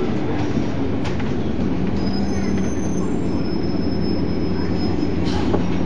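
Volvo Olympian 12M double-decker bus driving, heard from inside: a steady engine and road rumble with a low hum, and a faint high whine that comes and goes in the middle.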